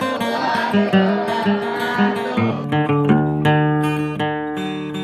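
Acoustic guitar background music: quickly picked notes, changing about halfway through to held, strummed chords.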